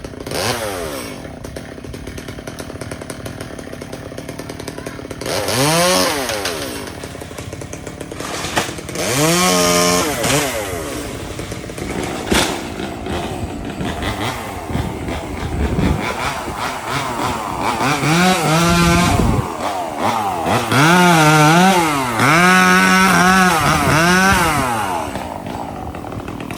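Two-stroke chainsaw revved repeatedly: several bursts up to full throttle, each rising and then dropping back to idle. The bursts are closely spaced and longest in the second half.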